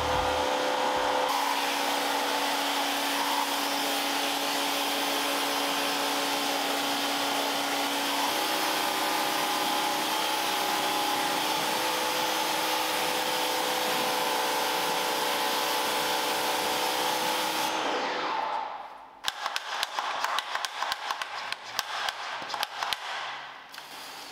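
Vacuum cleaner motor running steadily with a whining hum, its pitch stepping slightly about eight seconds in, then winding down after about eighteen seconds. A rapid run of clicks and knocks follows.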